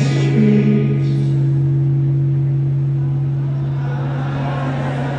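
Live concert sound through a PA: a low guitar chord struck and left ringing, its notes held steady for several seconds. A shorter higher note sounds briefly over it near the start.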